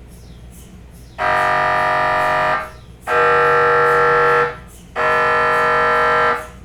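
MRI scanner's gradient coils buzzing in three loud, even-pitched buzzes of about a second and a half each, with short pauses between, over a steady low hum.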